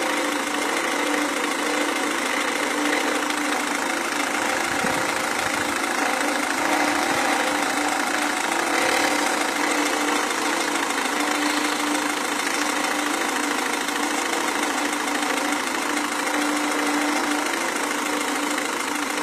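Renault Mégane 1.5 dCi four-cylinder turbodiesel engine idling steadily, giving off the abnormal engine noise whose cause is being sought.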